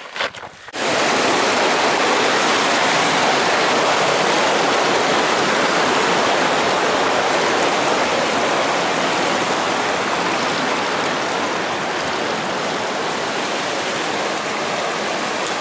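Mountain stream rushing over rocks, a loud steady rush that starts suddenly about a second in and eases slightly near the end.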